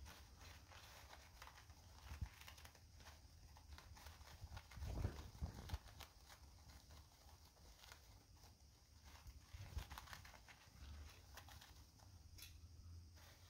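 Faint rustling and crinkling of toilet paper as a Syrian hamster burrows into it and arranges it into a nest, with a few soft low bumps, the loudest about five seconds in.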